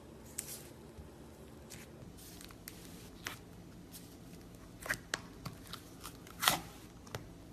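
Slime being pressed and stretched by hand, making irregular small pops and crackles, the loudest one near the end.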